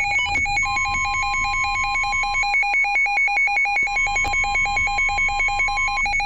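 Weather radio alert alarm warbling rapidly and evenly between a low and a high pitch, signalling a severe thunderstorm warning. The steady 1050 Hz NOAA Weather Radio warning tone starts under it about half a second in and cuts off near the end.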